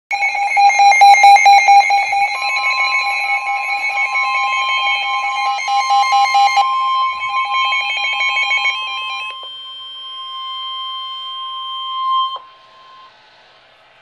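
Weather radio receivers sounding an emergency alert: several overlapping pulsing alarm beeps under a steady warning alarm tone. The beeps drop out one by one about seven and nine seconds in, and the steady tone cuts off about twelve seconds in, before the warning message is read.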